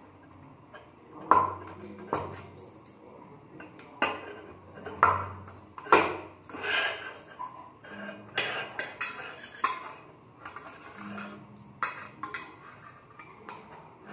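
Small kitchen knife clinking and scraping against a stainless steel plate as it slices through soft paneer, in irregular strokes with a few sharper knocks.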